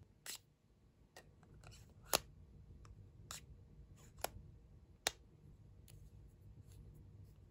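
Magnetic cap of a hince lipstick clicking as it is pulled off and snapped back onto the case: a string of light sharp clicks, the loudest about two seconds in.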